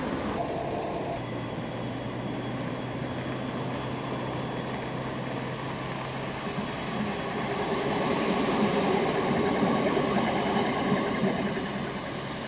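Electric suburban railcar no. 1324, a 1300-series car, pulling away and running past close by. Its running noise swells to its loudest about eight to eleven seconds in as it goes by, over a steady low hum.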